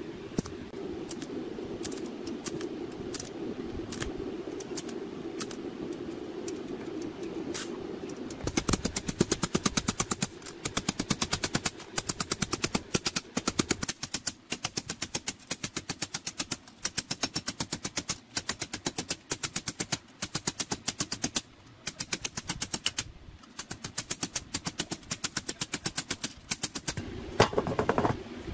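TIG welding arc giving a steady buzz with a few clicks, then about eight seconds in, rapid metal-on-metal hammering in fast bursts of strikes as a steel band is beaten over a steel anvil.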